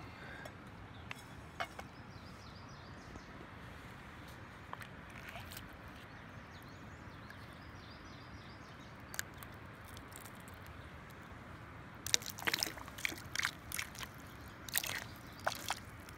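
Cold water poured onto hot cowboy coffee in a camp pot to settle the floating grounds, heard as a run of irregular splashes and drips starting about three quarters of the way through. Before that, only a faint steady hiss with a few small clicks.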